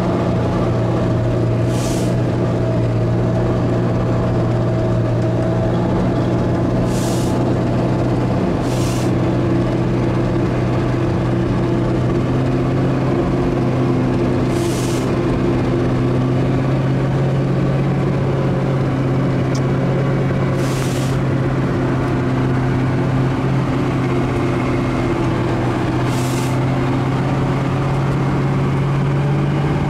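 Ural truck's engine running steadily under way, heard from inside the cab, a constant drone that does not rise or fall. Short hisses cut in about six times.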